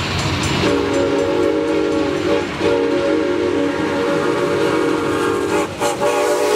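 Santa Fe 3751, a 1927 Baldwin 4-8-4 steam locomotive, approaching and passing at speed with its multi-note chime whistle blowing long blasts. The whistle starts under a second in, breaks briefly about two seconds in and again near the end, over the steady rumble of the moving train.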